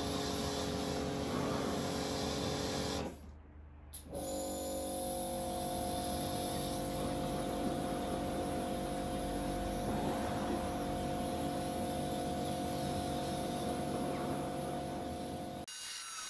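Kärcher K4 electric pressure washer running: a steady motor-and-pump hum of several held tones under the hiss of the water jet. It cuts out for about a second around three seconds in, starts again, and stops near the end.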